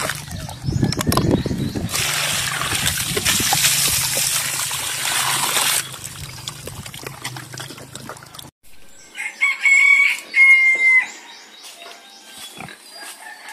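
A native pig grunts low at the muddy wallow, then water rushes and splashes for about four seconds as it is poured out. After that a rooster crows loudly, in two parts, about ten seconds in.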